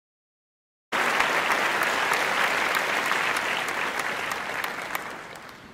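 Crowd applauding, starting abruptly about a second in and fading out near the end.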